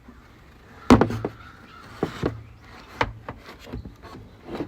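Plastic engine cover being handled on a Jeep Grand Cherokee V6: several hard plastic knocks and clicks, with rubbing and scraping between them.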